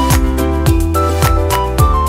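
Background music with a steady beat, about two beats a second, under a melody.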